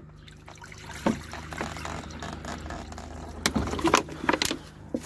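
Water poured from a plastic bottle into a shallow tile water dish, a steady splashing hiss, with a few sharp clicks and knocks about a second in and again near the end.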